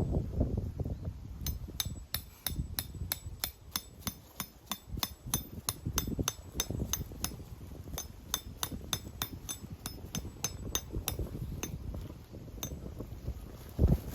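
Tent pegs being hammered into the ground: a long run of quick, sharp strikes, about three a second, with a couple of brief pauses. Wind rumbles on the microphone underneath.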